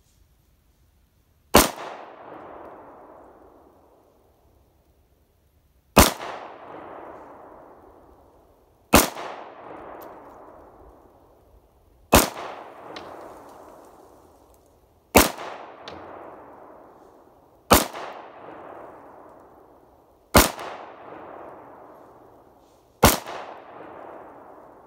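Eight single shots from a 9mm Glock 19–pattern pistol built on a P80 frame, fired slowly, one every two and a half to four seconds, each followed by a long fading echo.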